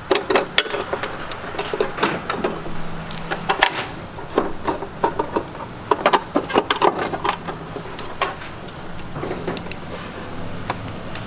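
Hard plastic interior tray being pried with a screwdriver, giving irregular clicks, knocks and plastic rattles as they try to release the clips holding it.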